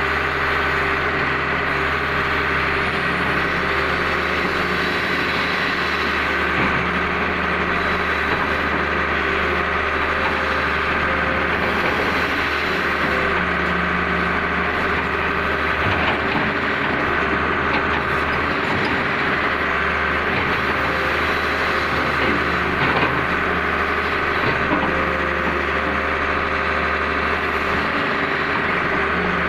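Excavator's diesel engine running steadily, heard from inside the cab as the arm and bucket dig, with a few faint knocks along the way.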